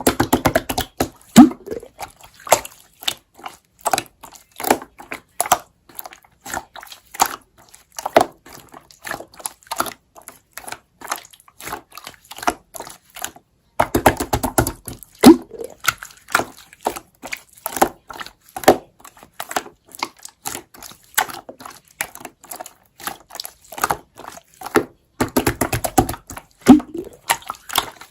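Slime being squeezed and poked by hand: a rapid, irregular run of sticky clicks and small wet pops.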